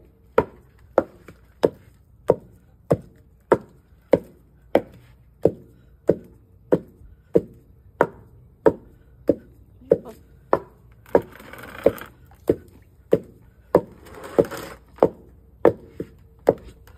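Wooden pestle pounding food in a wooden mortar: a steady, even rhythm of thuds, a little under two strokes a second.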